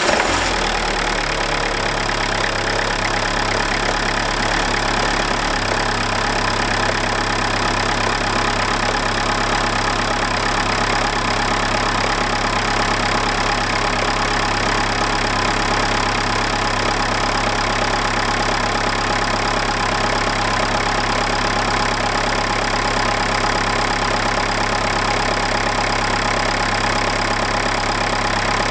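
Renault 1.5 dCi (K9K) four-cylinder common-rail turbodiesel idling steadily just after a cold start at −7°C. Its low note firms up about five seconds in.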